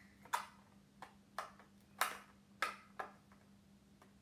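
Littlest Pet Shop blister-card packaging handled and worked open: about six sharp crinkles and snaps of plastic and card spread over three seconds.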